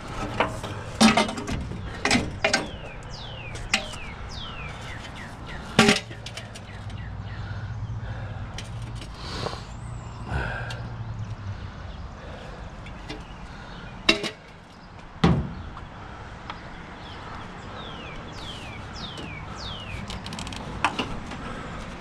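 Scattered sharp knocks and clanks from scrap being worked on and handled, a few seconds apart. Between them there are short falling bird chirps, and a low hum that stops about halfway through.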